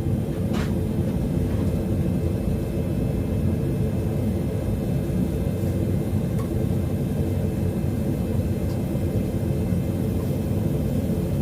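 Gas forge burner running with a steady low rumble, heating a workpiece to forge-welding heat. A single faint click sounds about half a second in.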